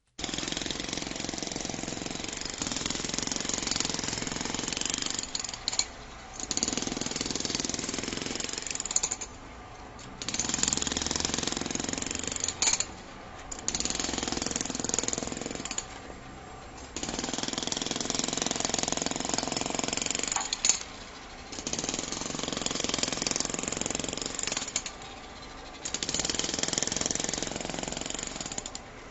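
Jackhammer hammering in bursts of a few seconds each, stopping for about a second between bursts, about seven times over.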